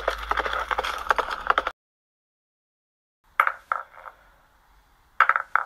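Added sound effects: a rapid, dense clatter that cuts off suddenly under two seconds in. After a pause come three sharp knocks with a short ring in quick succession, then two more near the end.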